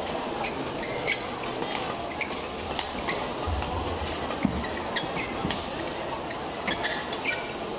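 Badminton rally in an indoor hall: sharp racket hits on the shuttlecock at irregular intervals, about one every half second to second, over a steady background of crowd and hall noise.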